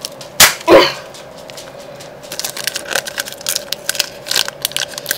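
Two sharp knocks about a third of a second apart near the start, then the foil wrapper of a trading-card booster pack crinkling as it is handled.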